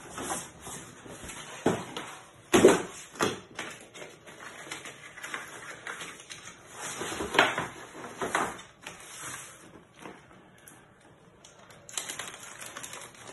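A flat cardboard package being pulled open and handled, giving irregular scrapes, flaps and knocks, the loudest a sharp one about two and a half seconds in. Near the end a small plastic bag crinkles.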